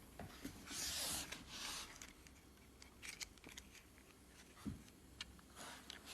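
Faint handling noises: a couple of short rustling swishes about a second in and again near the end, with scattered small clicks.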